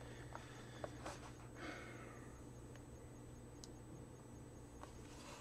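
Faint handling noise as a laptop is turned over in the hands: a few light clicks and a brief soft rustle, over a steady low hum.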